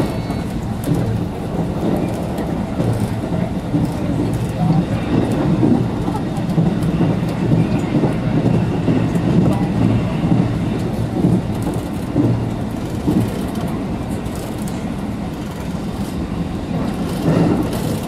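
JR Kobe Line rapid electric train running at speed, heard from inside the front car: a steady low rumble of wheels and running gear, with scattered clicks over the rails.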